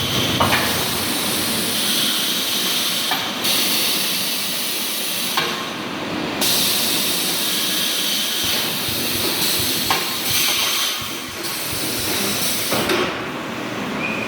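Wire mesh welding machine running: a hiss that cuts in and out every few seconds over steady machine noise, with a sharp knock at several of the changes.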